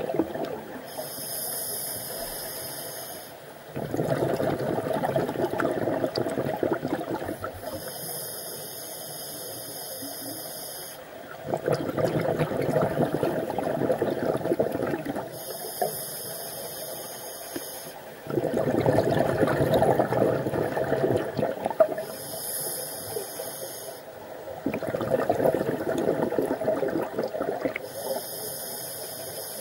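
Scuba diver breathing through a regulator, heard through a camera's underwater housing: a high hiss on each inhalation alternating with a louder, longer rush of exhaled bubbles, about five breaths in a steady rhythm.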